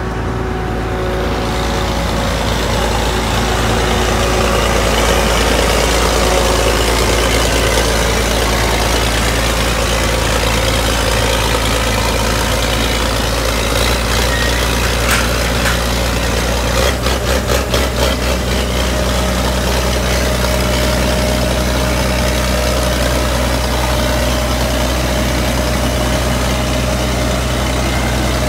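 Heavy engine idling steadily, with a brief rapid fluttering pulse for about a second a little past the middle.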